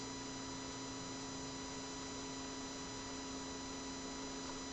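Steady electrical hum with a hiss underneath, unchanging throughout; no other sound.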